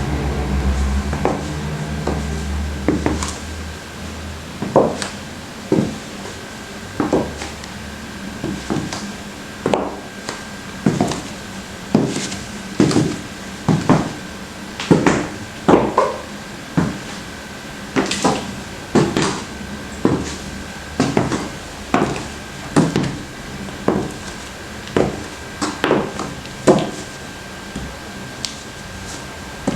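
Footsteps in black patent leather stiletto-heeled Oxford pumps on a hard floor: sharp heel clicks at about one step a second.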